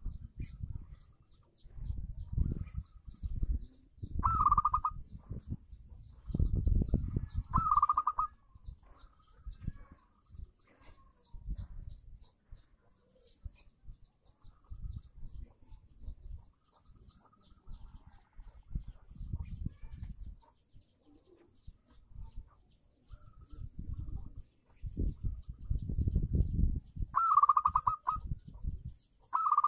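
Zebra dove (perkutut) giving short trilled coo calls, four in all: two in the first eight seconds and two close together near the end. Between and under them run irregular low rumbling bursts.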